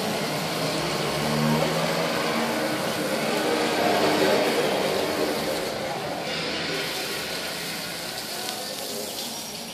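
Garden hose spraying water onto a tiled floor, a steady hiss, with voices in the background and a low hum that swells and fades in the first half.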